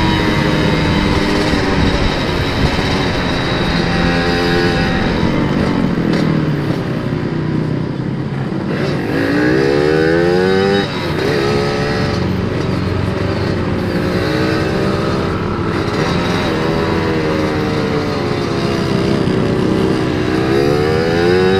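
Yamaha RX-King two-stroke single-cylinder motorcycle engine under way, heard from the saddle. Its pitch climbs and falls again and again as the throttle is opened and eased, with a sudden drop about halfway through and a fresh climb near the end.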